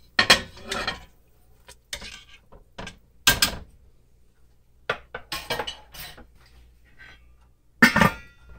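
Kitchenware clattering as a beef roast is slid off a plate into a stainless steel stockpot: a string of separate knocks and clinks of plate and utensil on the pot. Near the end, a glass pot lid is set on with a louder clink that rings briefly.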